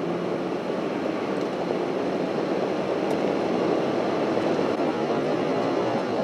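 Steady road noise from inside a moving car: engine drone and tyre hum that grow slightly louder.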